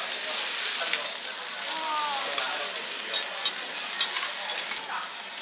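Food sizzling steadily on a hot iron griddle, broken by several sharp clicks of a metal spatula tapping and scraping on it.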